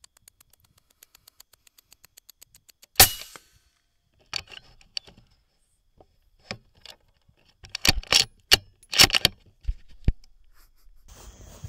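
A single loud rifle shot about three seconds in, taking the coyote. It is followed by scattered clicks and knocks of the rifle being handled, loudest around eight to nine seconds in. Soft, quick, evenly spaced ticks come before the shot.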